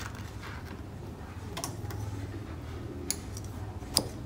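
Kitchen scissors snipping a red chili over a wooden mortar: a few separate sharp clicks, the loudest near the end, over a steady low hum.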